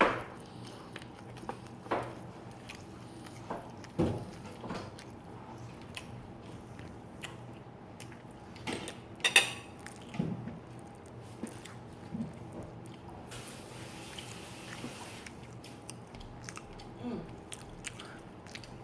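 A person chewing and biting into sundae (Korean blood sausage) close to the microphone, with scattered short mouth clicks and smacks. The sharpest click comes about nine seconds in, and a brief soft hiss a little past halfway.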